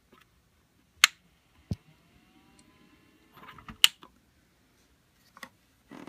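Sharp handling clicks and a knock against the plastic humidifier, with two loud clicks about a second in and near four seconds. A faint rising whine sounds between them.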